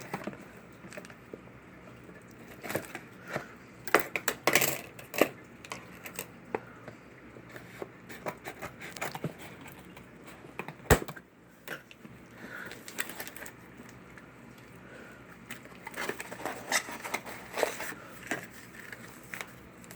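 A mailed package being cut and opened by hand: irregular scraping, crinkling and clicking of packaging, with a single sharp click about eleven seconds in.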